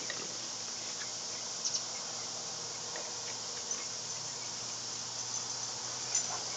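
Quiet, steady outdoor background: an even hiss with a few faint, soft clicks.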